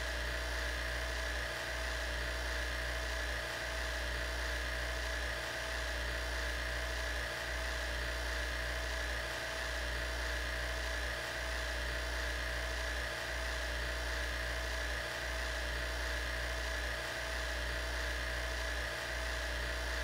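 Steady mechanical hum: a low drone with a high whine above it, dipping slightly at an even pace about every two seconds.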